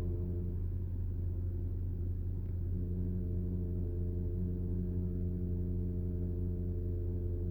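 Radial-piston tandem hydraulic pump of a Porsche PDCC system running with a steady low hum and whine, made up of several even tones. This drone is normal for the pump and not a sign of a fault.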